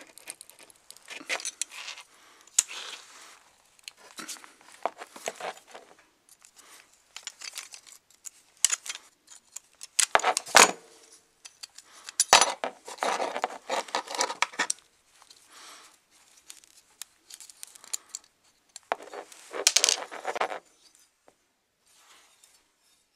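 Rusty metal bracket pieces from an antique clothes iron clinking and scraping as they are worked apart by hand with pliers, in irregular bursts, with a few sharp metallic clicks around the middle.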